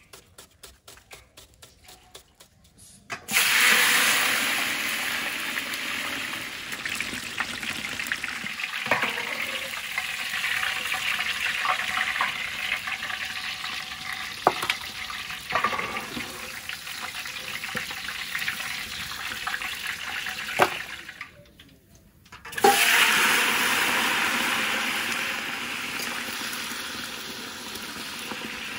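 Ingredients going into hot oil in a large cooking pot: a loud sizzle starts suddenly about three seconds in and slowly dies down, with a few sharp knocks along the way. The sizzle falls away briefly near the end, then a second batch hits the oil with another sudden loud sizzle that fades again.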